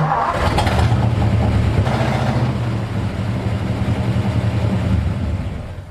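1964 Ford F-250 engine held at high revs while the rear tires spin in loose dirt on a board wedged under them, the truck stuck and not moving. The engine drops off near the end.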